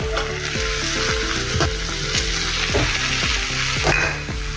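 Okra and masala sizzling in a frying pan, over instrumental background music.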